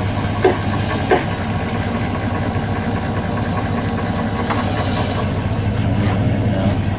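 An engine idling steadily, with a few light clicks in the first second or so.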